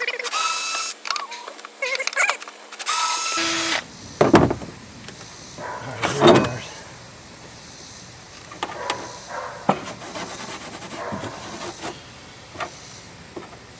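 Electric drill with a larger bit running in short bursts. It gives way, about three seconds in, to a couple of heavy thumps and then scattered clicks and knocks.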